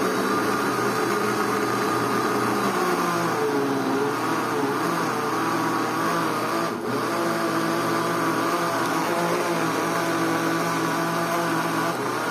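Mondial Turbo countertop blender running steadily, blending a thick batter of eggs, oil, water and sour cassava starch, with a brief dip in the motor sound about halfway through.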